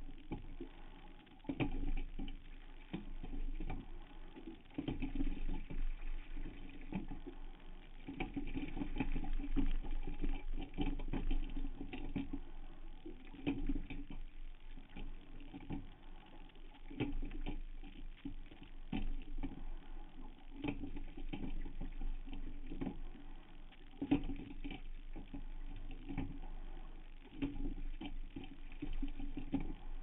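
Rowing strokes in a Hudson Great White single scull: a surge of oar and rigging noise with knocks about every three to four seconds, over a steady low hum.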